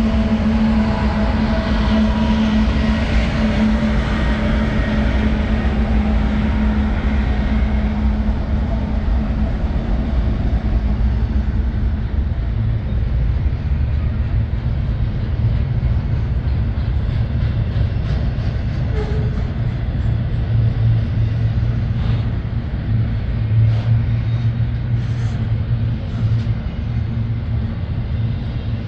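Union Pacific freight train passing close by: the drone of the trailing diesel locomotives fades over the first several seconds, then double-stack container well cars roll past with a steady low rumble of wheels on rail and a few short clicks in the second half.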